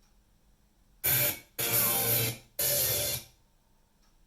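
Audio from a TV broadcast: three short, loud bursts of crashing, cymbal-like sound, each under a second, starting about a second in, with quiet between and after.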